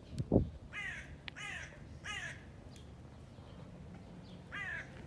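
A crow cawing four times: three caws close together in the first couple of seconds, then one more near the end. A low thump near the start is the loudest sound.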